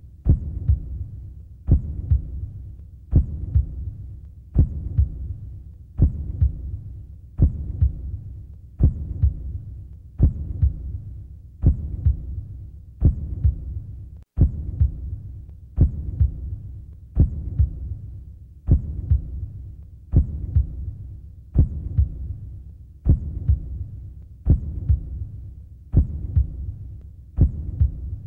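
A slow, steady heartbeat, a double beat about every second and a half.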